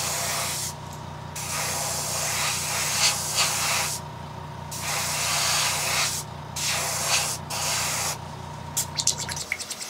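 Airbrush spraying thinned acrylic paint onto crankbait lure bodies in hissing bursts, with short pauses between passes. A steady low hum runs underneath and cuts off near the end.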